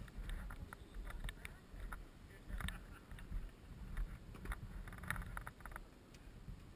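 Low rumble of wind on a body-worn microphone, with scattered clicks, taps and rustles from someone moving about and handling a parked motorcycle.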